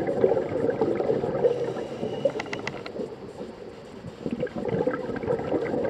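Scuba diver's exhaled bubbles gurgling from the regulator past the underwater camera. The bubbling fades for a moment in the middle, just after a quick run of sharp clicks, then comes back.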